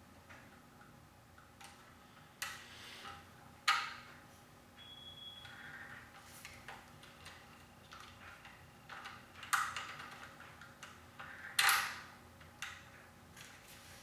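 Handling noise from an airsoft electric rifle of plastic and metal: scattered light clicks and knocks, the sharpest about four, ten and twelve seconds in, with a brief thin ping about five seconds in.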